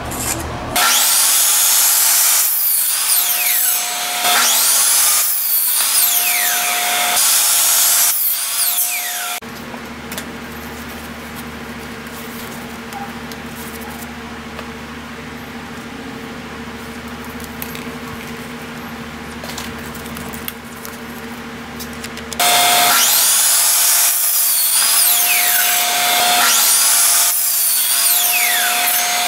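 Craftsman compound miter saw cutting 2x4 lumber, its blade whine rising and falling through repeated cuts in two long loud stretches. Between them, a quieter steady hum.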